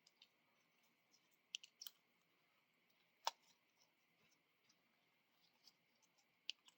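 A few short, sharp clicks and taps of small hard parts being handled and fitted together: a bead and spacers going onto a 3D-printed resin spin stick. The clicks are sparse, about five in all, the loudest a little over three seconds in.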